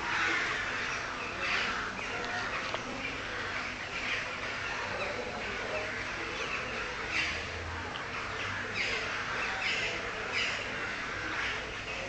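A flock of birds calling: many short calls overlapping in a continuous chatter, with a few louder calls standing out now and then.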